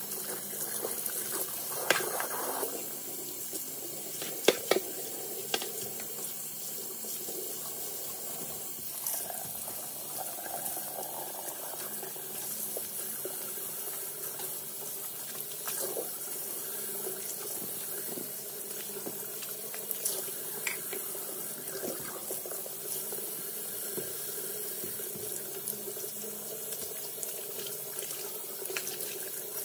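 Kitchen faucet running into a porcelain sink while a sponge, gloves and a cloth are rinsed and wrung under the stream. There is a steady splashing hiss, with a few sharp knocks in the first five seconds.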